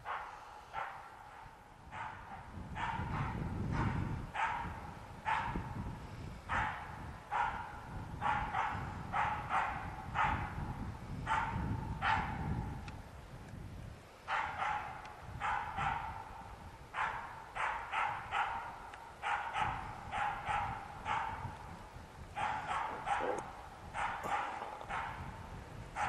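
Hunting bird dog barking at bay in a steady, repeated series, about one to two barks a second with a short break about halfway through. This is bay barking (ståndskall) that marks a capercaillie treed in a spruce.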